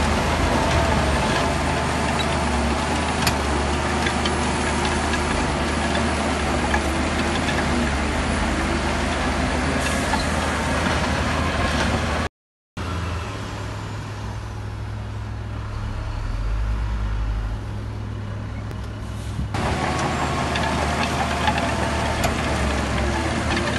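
Diesel engines of heavy construction machinery running steadily. About twelve seconds in the sound cuts out for a moment. A quieter, steady engine hum follows for several seconds before the louder engine noise returns.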